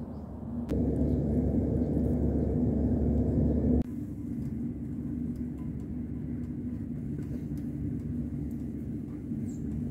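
A steady low rumble with a faint hum. A louder stretch starts suddenly about a second in and cuts off just before the four-second mark.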